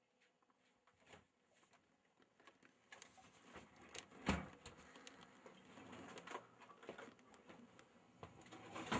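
Faint, irregular clicks and light knocks over a soft rustle, building up after a near-silent start, with a sharper thump about four seconds in.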